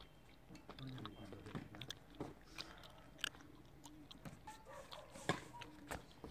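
Badminton rackets striking a shuttlecock during a rally, as short sharp cracks a second or two apart. The loudest come about three and about five seconds in, with lighter ticks and scuffs between them.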